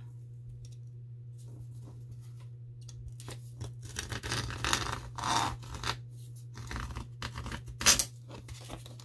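Utility knife blade scratching and cutting through the cardboard edge of a mounted puzzle in short, irregular strokes starting about three seconds in, with one sharp click near the end.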